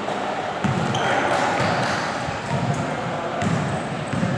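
Basketball game on a hardwood court: the ball bouncing and players moving, with a few sharp knocks, under people's voices calling in the gym.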